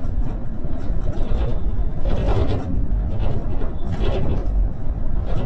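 Town street ambience: a steady low rumble with scattered brief higher noises.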